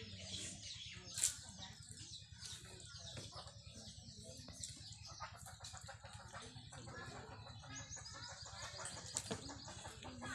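Chickens clucking and small birds chirping, with one sharp click about a second in.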